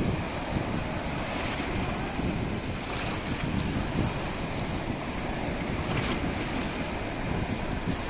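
Sea surf: small waves breaking one after another at the shoreline and foamy water washing in over the shallows, a steady, unbroken noise.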